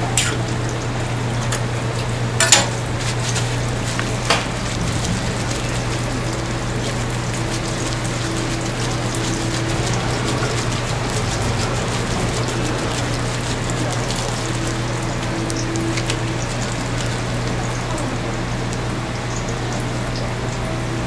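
Hotteok frying in shallow oil on a flat griddle: a steady sizzle over a low steady hum, with two sharp clicks in the first few seconds.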